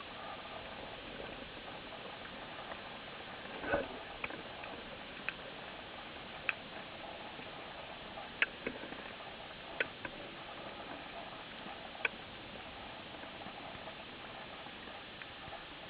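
Underwater sound picked up by a freediver's camera: a steady hiss with sharp clicks scattered every second or two, and one louder, longer knock about four seconds in.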